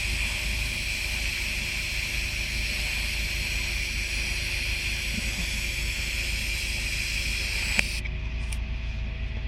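TIG welding arc on pipe: a steady hiss with a high ringing tone. Near the end a click, and the high hiss cuts off.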